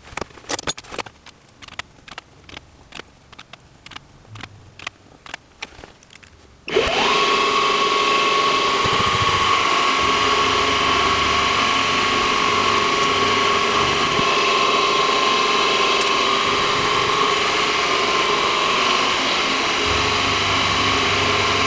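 Scattered light clicks and knocks of metal parts being handled, then about seven seconds in a metalworking machine tool's motor starts, its whine rising quickly to a steady high tone and running on steadily and loudly.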